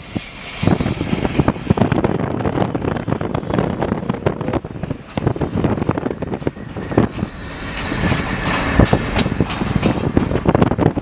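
Running vehicle noise with irregular wind buffeting on the microphone, heard from a vehicle pacing a steam train.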